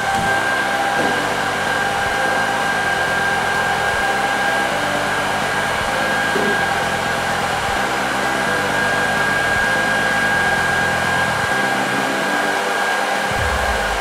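A 3000W corded hair dryer running steadily at full power, a blowing hiss with a steady high whine.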